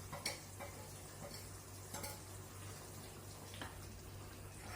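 Mutton mince and onions frying in oil with a faint, steady sizzle while a spoon stirs them in the pan, knocking lightly against it a few times.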